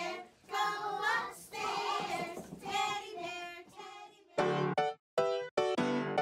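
A group of young children singing together for about four seconds. It gives way abruptly to a jingle of short, clipped keyboard chords with brief silences between them.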